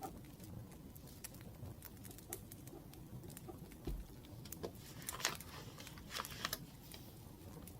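Wood fire crackling: irregular sharp pops and snaps over a low steady rumble, busiest about five seconds in.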